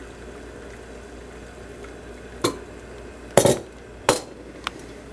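A cup and tableware clinking and knocking while tea is made in the cup: four short sharp knocks, the loudest two past the middle.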